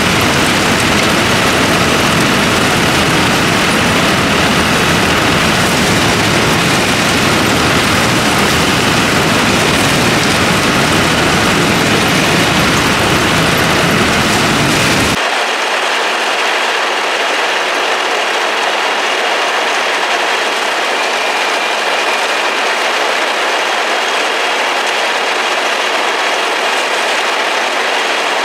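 John Deere rice combine harvester running, with a loud, steady mechanical clatter of its working parts. About halfway through, the deep rumble drops out suddenly, leaving a thinner, higher clatter.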